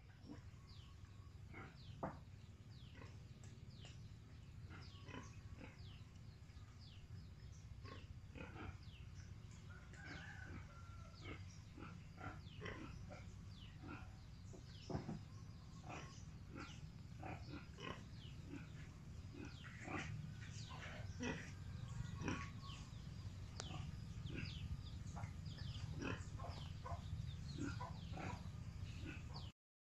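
Many short, sharp animal calls, several a second and irregularly spaced, over a steady low rumble.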